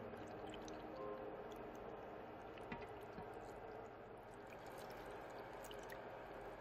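Anchovy stock poured from a jug into a pot full of raw ingredients, a steady splashing trickle of liquid.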